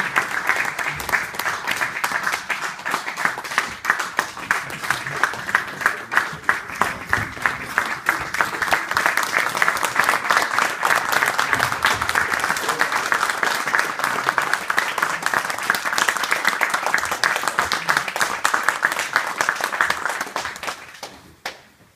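Audience applauding, a dense patter of many hands clapping that keeps up and then dies away a second or two before the end.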